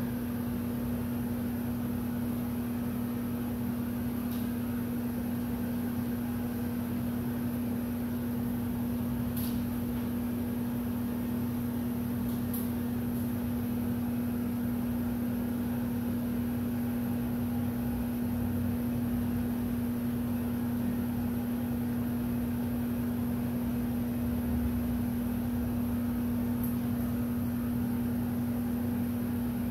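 Handheld electric heat gun running steadily while it heat-shrinks window tint film on glass: a constant fan whir with a steady hum, and a few faint ticks.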